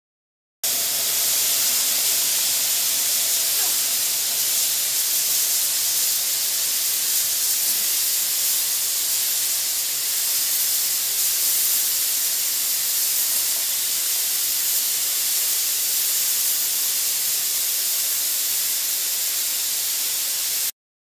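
A loud, steady hiss like static or white noise that starts abruptly about half a second in and cuts off just as abruptly near the end.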